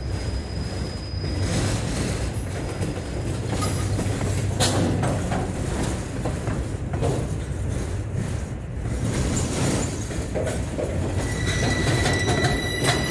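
Norfolk Southern freight cars rolling past close by: a steady rumble and rattle of wheels on rail, with a few sharp clanks. Near the end a steady high-pitched ring comes in over it.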